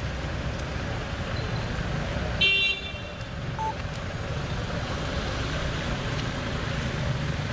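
A single short car horn toot about two and a half seconds in, over a steady background of outdoor traffic noise.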